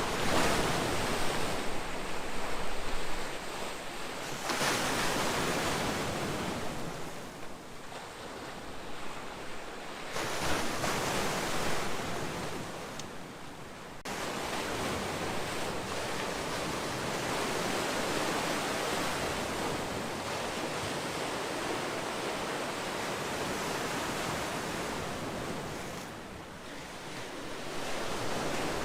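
Calm sea waves breaking in surf. Three swelling and fading surges come first, then a long steady wash that dips briefly near the end before another wave builds.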